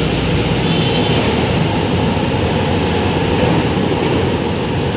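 Steady roar of road traffic, with water splashing from small plaza fountains.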